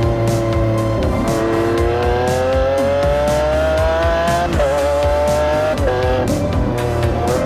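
Lamborghini Aventador's V12 accelerating hard, its pitch climbing steadily, then shifting up with sudden drops in pitch about halfway through and twice more near the end, over background music.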